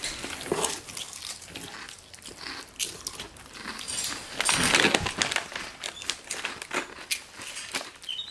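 Plastic snack bag crinkling as it is handled, with crunching and chewing of a crunchy snack; the bag rustles loudest about four and a half seconds in.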